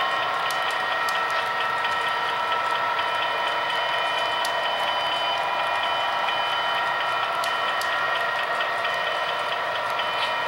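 HO-scale model train running along the layout's track: a steady mechanical hum with several held tones, with scattered sharp clicks from the wheels and track.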